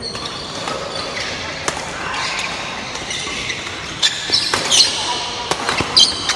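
Badminton doubles rally: rackets strike the shuttlecock in sharp cracks, coming quicker in the second half, and sports shoes squeak in short chirps on the court floor as the players lunge and turn.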